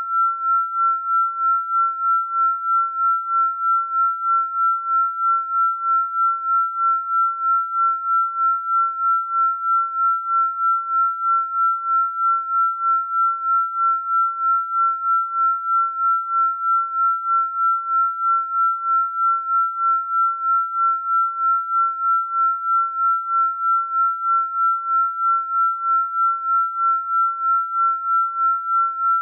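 Electronically generated pure sine tone, one steady high pitch held throughout, pulsing evenly in loudness about twice a second, as in a frequency-healing or binaural-beat track.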